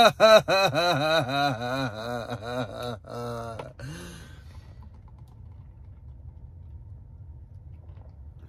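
A man's exaggerated mock sobbing: rapid wailing cries, each rising and falling in pitch, about four a second, slowing and dying away about four seconds in.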